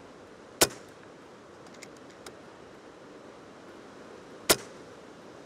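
Two shots from an FX DRS Pro PCP air rifle, each a single sharp report, about four seconds apart, with two faint clicks between them. Steady wind noise lies underneath.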